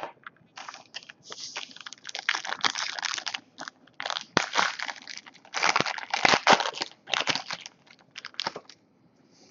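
Crinkling and rustling of a foil trading-card pack wrapper and cards being handled, in uneven crackly bursts that stop shortly before the end.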